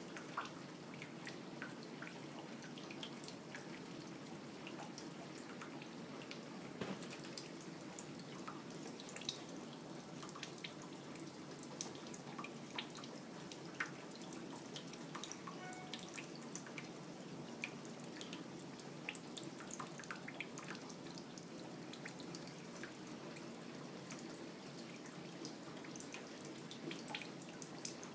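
Thin stream of water trickling from a kitchen faucet into a stainless steel sink, with many irregular drips and splashes ticking on the metal.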